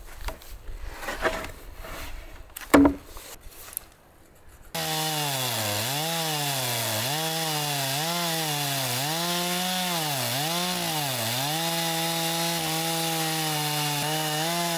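Wooden knocks and rubbing as a log is shifted on a pallet, with one loud knock a little under three seconds in. Then, from about five seconds in, a two-stroke chainsaw rips lengthwise along the log, its engine pitch dipping again and again under load before holding steady near the end.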